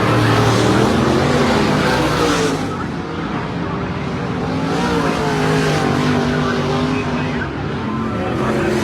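Several dirt-track modified race cars running together on the track, engines at high revs, their pitches rising and falling as they accelerate and lift.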